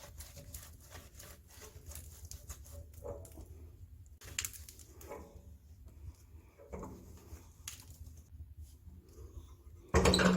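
A cloth rag wiping the glass window of a wood-burning stove door: a run of short rubbing scrapes and faint squeaks. A louder clatter comes near the end.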